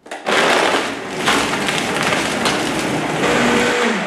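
High-powered countertop blender running at full speed, pulverising ice, kale and beets into a smoothie. A little over three seconds in it is switched off, and the motor winds down with a falling whine.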